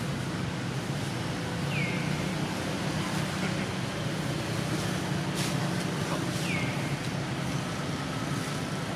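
Steady low mechanical hum, like distant road traffic, over outdoor noise. Two short high chirps cut through it, one about two seconds in and one near seven seconds.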